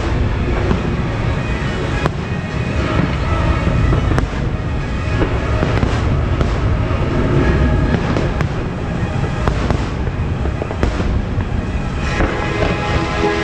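Fireworks show: a steady low rumble of bursting shells with scattered sharp cracks, and the show's music soundtrack playing along.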